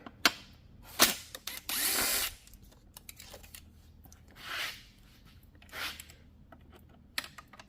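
A power driver whirs for under a second, about two seconds in, backing out the bolts that hold the inner felling dog on a chainsaw. Two shorter, softer whirs follow, with sharp tool clicks before and after.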